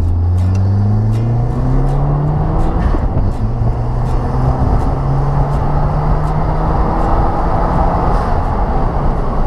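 Subaru WRX's turbocharged flat-four engine pulling hard under acceleration: the pitch climbs, drops at a gear change, climbs again, then holds fairly steady.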